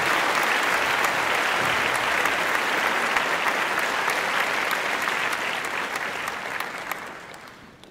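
Large arena crowd cheering and applauding, a dense roar with sharp claps through it, fading out over the last two seconds.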